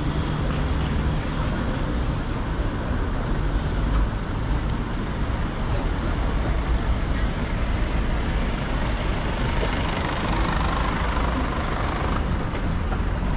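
Steady road traffic noise from passing cars and heavier vehicles, with a low engine hum that fades out in the first couple of seconds.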